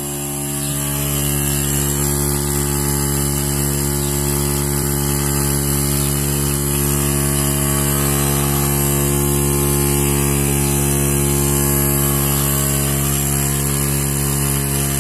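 Portable tyre-inflator air compressor running steadily, pumping air into a car tyre through a hose on the valve. An even, unchanging hum.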